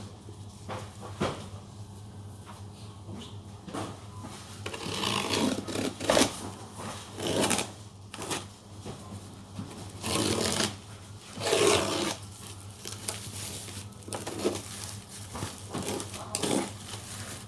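Packaging being handled and unwrapped: irregular bursts of rustling and crinkling over a steady low hum.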